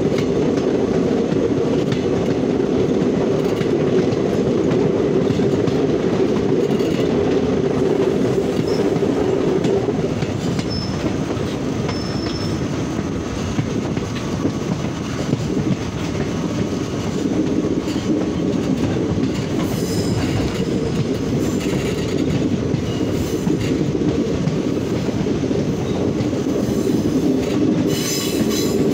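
Passenger train running, heard from an open coach window: a steady rumble and rattle of wheels on the rails, with a few brief high squeals as the train rounds curves.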